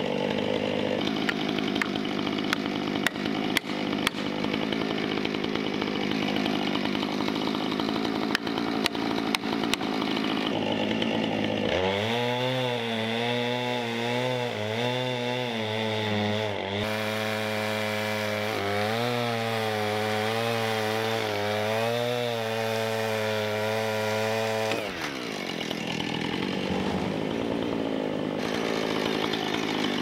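Two-stroke chainsaw cutting through a felled poplar log, running at high revs under load. About twelve seconds in the engine note turns clear and wavers up and down as the saw works through the cut. Near the end it goes rough again.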